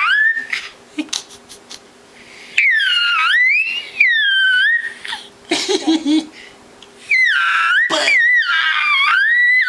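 Baby making high-pitched squealing vocal sounds, each long call sliding up and down in pitch, repeated about four times with short pauses between, and a brief lower voice in the middle.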